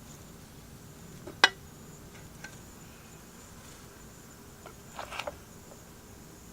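A few sharp clicks or taps: one loud one about a second and a half in, a faint one a second later, and a quick cluster of several about five seconds in. Under them is a faint steady high-pitched tone.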